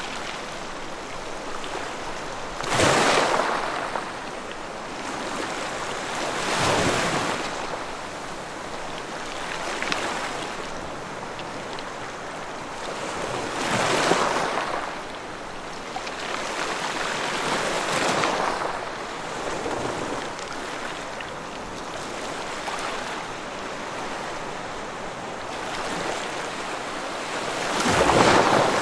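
Ocean waves breaking on a beach: a steady hiss of surf with a swell of breaking water every few seconds, the biggest about three seconds in and at the very end.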